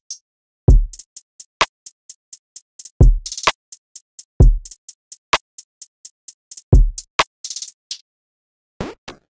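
Programmed drill/trap drum loop from a sample pack: deep kicks with long low tails, snare or clap hits between them, and hi-hats ticking in fast runs. The loop stops near the end.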